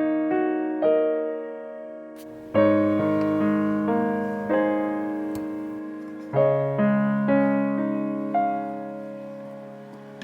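Background piano music: slow chords and melody notes struck every second or two, each left to ring and fade.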